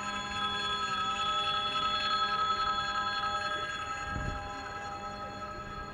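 Railway level-crossing warning bell ringing continuously, signalling that a train is approaching and pedestrians must stop. It gets a little quieter in the second half.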